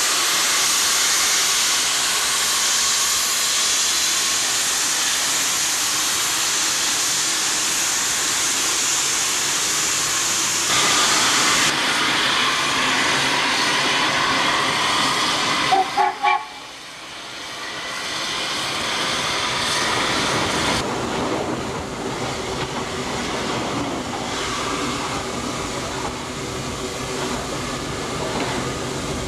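Steam locomotive No. 4 of the Manitou & Pikes Peak Cog Railway letting off a steady, loud hiss of steam, with a few short whistle toots about halfway through.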